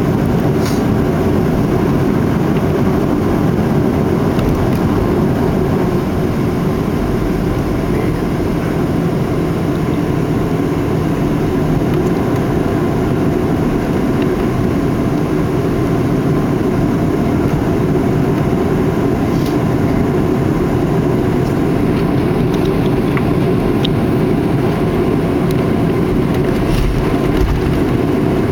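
Steady cabin rumble of a jet airliner taxiing after landing, its engines running at low power, heard from inside the passenger cabin. It is loud and even throughout, with a faint steady tone above the rumble.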